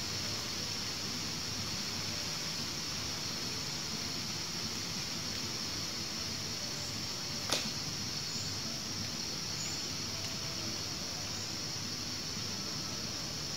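A steady high hiss of outdoor background noise, with one sharp click about halfway through.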